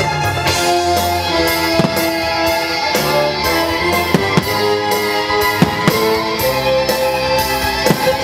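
Orchestral show music playing loudly over a park sound system, with several sharp firework bangs scattered through it.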